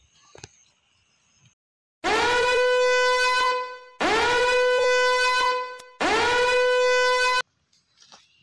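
Warning-horn sound effect: three loud, buzzy horn blasts about two seconds apart, each lasting about one and a half seconds and swooping up into its note at the start. Faint insects chirp steadily before the first blast.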